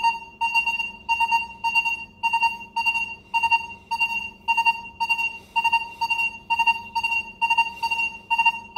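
Minelab Vanquish 540 metal detector giving rapid, short target beeps at one steady high pitch, about two to three a second, as its coil sweeps back and forth over three silver dimes a coil-width apart. Each dime is answered separately on every pass, showing the fast recovery speed of coin mode.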